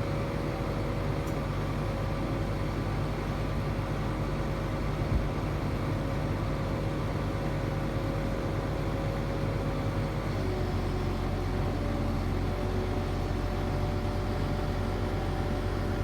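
Crane running steadily as it lowers a load, a mechanical drone with a few steady tones that drop lower about ten seconds in. One light knock about five seconds in.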